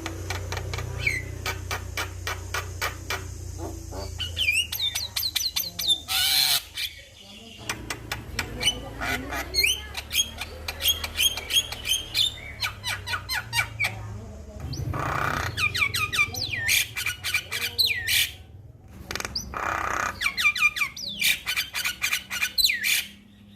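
Male Javan myna (jalak kebo) singing: fast runs of clicking, chattering notes and short whistled glides, broken by harsh squawks three times, with a low hum underneath.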